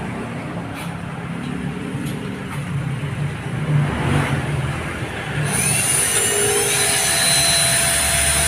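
Cordless drill/driver running on a van seat back while a headrest is fixed with screws. It starts suddenly about two-thirds of the way in as a steady whine, its pitch rising briefly and then holding. Before that there is only a low rumble with a few light knocks.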